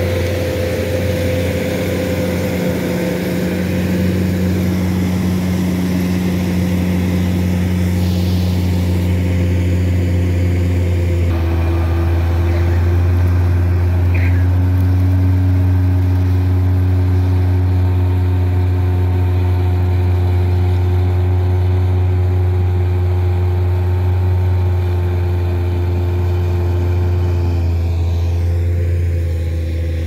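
Laverda Fiatagri 3650 combine harvester running under load with its straw-making drum, a loud steady mechanical drone with a deep hum. The mix of tones in the drone shifts about a third of the way in.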